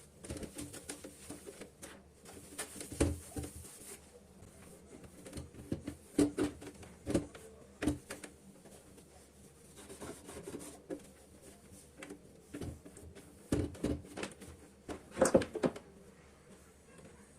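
Irregular knocks and clatters of household items being picked up and set down on a kitchen countertop, the loudest about three, six and fifteen seconds in.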